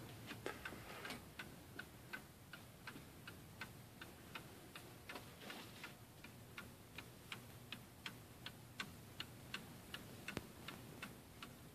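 Seth Thomas Gothic Beehive mantel clock's ST 89AL pendulum movement ticking quietly and steadily, about two and a half ticks a second. The movement has been cleaned and adjusted.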